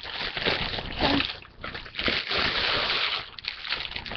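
Packaging rustling and crinkling as it is handled and unwrapped, in dense irregular bursts.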